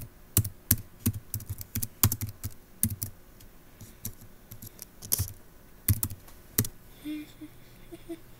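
Typing on a computer keyboard: a quick run of keystrokes over the first three seconds, then three louder single clicks spaced out a couple of seconds later.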